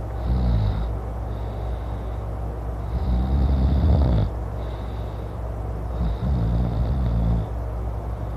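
A man snoring loudly, three long snores about three seconds apart, with quieter breaths between them. A steady low rumble runs underneath.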